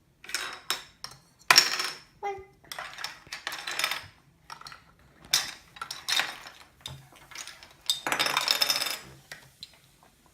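Small plastic game bricks clattering against each other and the table as they are gathered up and stacked into a wall. The clatter comes in several bursts, with a long busy rattle about eight seconds in.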